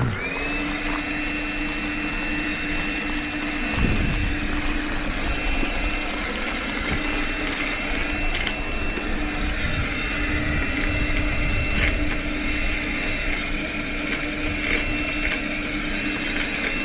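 An electric motor spins up and then runs steadily at a constant pitch, with slight wavers in load around the middle.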